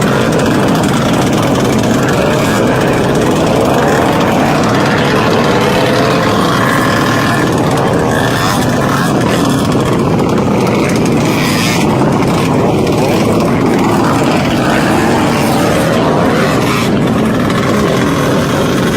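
Small motorbike engines running amid dense, steady noise, with engines audibly revving up and down a couple of times.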